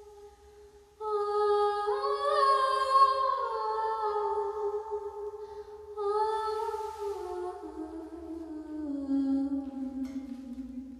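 A woman's voice singing long wordless, hummed notes that rise briefly and then slide slowly downward in pitch.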